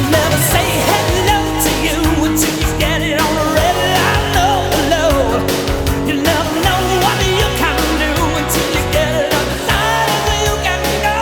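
Rock music with a sung vocal, electric guitar and a steady beat.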